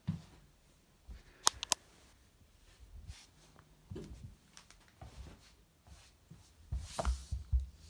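Sparse small knocks and rustles in a small room: two sharp clicks close together about a second and a half in, a few soft thumps, and a cluster of thumps with a brief rustle near the end.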